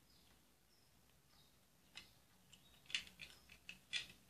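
Faint clicks and taps of a handheld camera stabilizer's parts being handled over styrofoam packing: a single click about two seconds in, then a quick run of sharper clicks between three and four seconds in.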